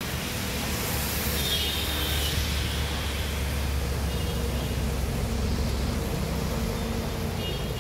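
Motor vehicles pushing through deep floodwater: a steady low engine drone under a continuous wash of splashing, churning water.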